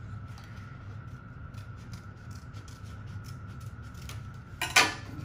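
Scissors snipping through construction paper, a run of small faint clicks. Near the end there is a single louder clack as the scissors are put down on the table.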